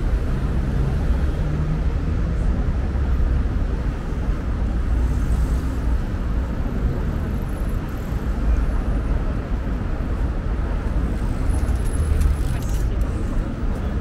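Steady city road traffic noise, with passing cars making a continuous low rumble.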